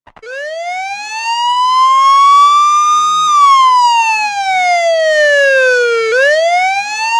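Police siren wailing: the pitch climbs slowly for about three seconds, falls for about three, then starts climbing again. It starts suddenly.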